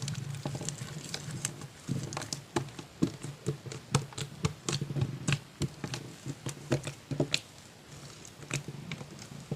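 Slime being squished and kneaded by hand, with many quick, irregular sticky pops and clicks over a soft squelching.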